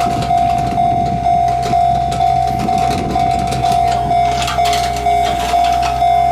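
Japanese level-crossing warning bell ringing, a single electronic clang repeated about twice a second, each stroke dying away before the next. Rumbling noise and some clatter sit underneath for the first few seconds.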